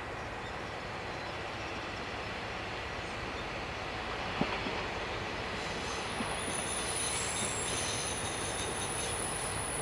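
Diesel railcars at a passing loop: a steady rail and engine rumble that slowly grows, with a thin high-pitched squeal from the approaching train's wheels on the rails setting in about six seconds in. There are a few light clicks.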